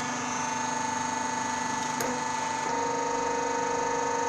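Hydraulic hose crimping machine running: a steady hum from its hydraulic power unit, with one sharp click about two seconds in, after which the hum's tone shifts slightly.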